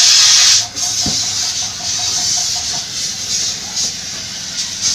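Steady hiss of compressed air, loudest in the first moment and then easing, with a single knock about a second in.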